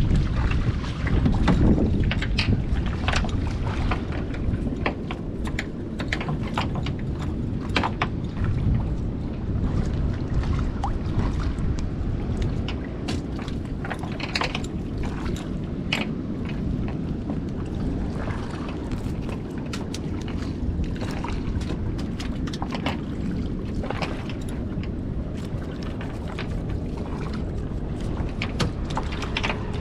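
Steady wind rumbling on the microphone, with scattered short clicks and rustles from a nylon cast net being handled as fish are picked out of it.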